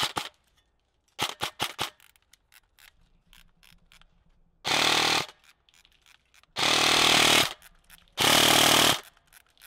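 Airsoft gun set up to fire about 40 rounds a second, shooting. About a second in there is a quick run of four or five semi-auto shots. Then come three full-auto bursts of under a second each, in which the shots run together into one dense rattle, and a fourth burst starts at the very end.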